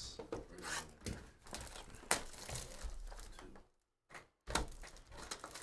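Hands handling and opening a cardboard Bowman Chrome trading-card box, with crinkling, rustling and scattered light taps. The sound breaks off into a brief silence about two-thirds of the way through.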